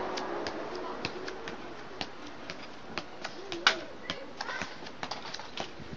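A football being juggled with the feet and knees: a run of irregular sharp taps as the ball is kicked, with one louder touch about halfway through.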